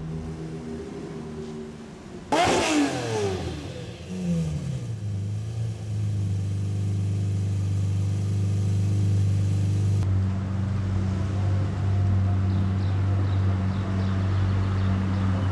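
Lamborghini Murciélago LP640's V12 engine: a sudden loud rev about two seconds in, its pitch falling away, then settling into a steady idle that runs on.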